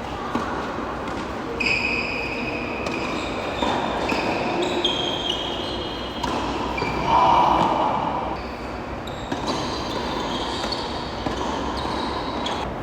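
Tennis rally: racket strokes and ball bounces every second or two, with high squeaking tones coming and going over a steady background.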